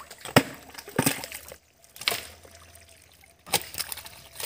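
Splashing and sloshing in shallow muddy water as fish are caught by hand in the mud, with several sharp splashes at uneven intervals.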